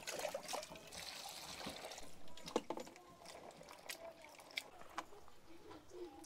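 Hands swishing and rubbing chili peppers in a metal bowl of water, splashing and trickling, with a few sharp knocks against the bowl.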